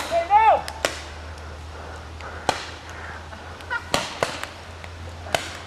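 Paintball markers firing single shots: about five sharp pops, spaced irregularly from a quarter second to a second and a half apart. A short shout comes just before the first shot.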